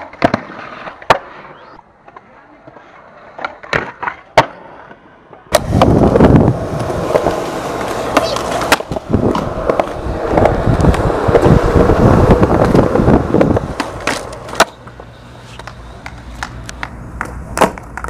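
Skateboard on concrete: a few sharp clacks of the board in the first seconds, from the tail popping and the wheels landing a trick. From about five seconds in there is a loud, rough rolling noise of the wheels on the concrete close by, dotted with small knocks. It eases off near the end with a few more clacks.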